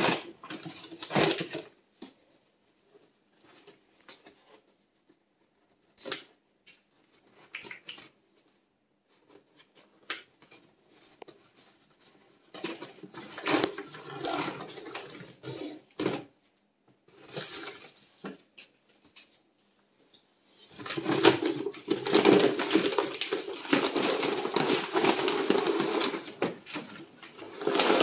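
Rustling and crinkling of a large bulk sack of dried chickpeas as its stitched string closure is pulled open and the sack is handled, with short scattered rustles and clicks. Near the end comes a longer stretch of continuous, dense rustling as the heavy sack is lifted over the Mylar bags.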